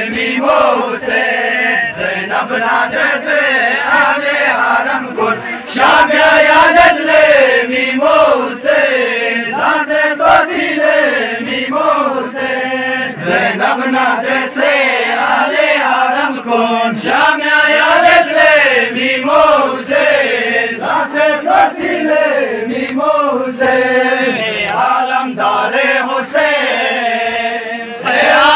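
A group of men chanting a Shia mourning lament (nauha) together, a repeated melodic phrase rising and falling.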